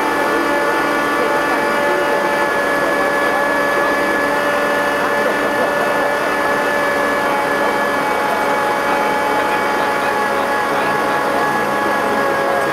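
An engine-driven machine, most likely the bungee crane's engine and winch, running steadily: a constant drone with several high, unwavering whining tones over it.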